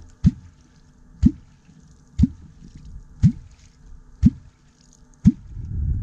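A catfish clonk driven into the water six times, about once a second. Each stroke gives a deep, rising 'bloop', the call used to draw wels catfish.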